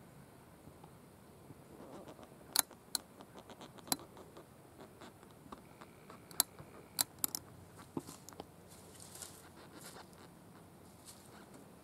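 A dozen or so sharp clicks and snaps, scattered and irregular, over a faint steady background, with some soft rustling near the end.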